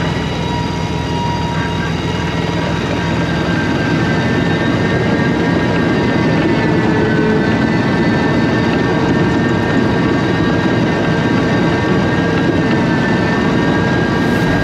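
Tractor-drawn rotary ditcher cutting a drainage ditch, its PTO-driven cutting wheels spinning and throwing soil: a steady, loud machine running with a constant whine over the rushing spatter of dirt.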